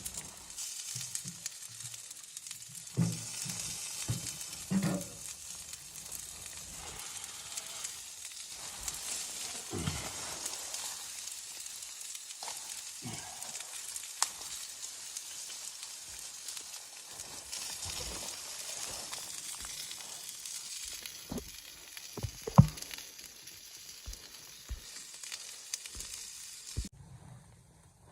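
Food sizzling as it fries in a pan, a steady hiss with a few scattered knocks of a utensil, the loudest about two-thirds through. The sizzling stops abruptly about a second before the end.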